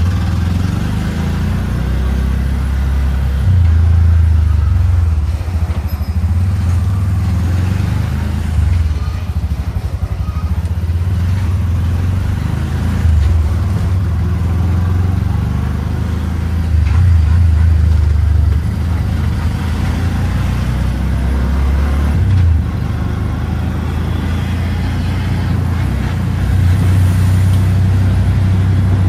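CNG auto-rickshaw engine running as the vehicle drives along, heard from inside the open passenger cabin: a steady low drone that swells several times as the throttle is opened.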